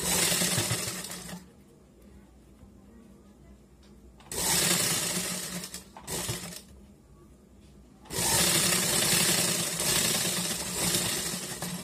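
Sewing machine stitching in four separate runs with pauses between them: a short run at the start, two more around four to seven seconds in, and the longest from about eight seconds in.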